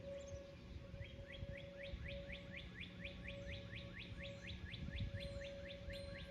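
A bird's rapid series of short down-slurred chirps, about five a second, starting about a second in. Under it runs the faint steady tone of a distant outdoor tornado warning siren, with low wind rumble on the microphone.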